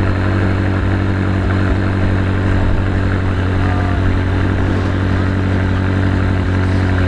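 McLaren 600LT's twin-turbo V8 idling steadily.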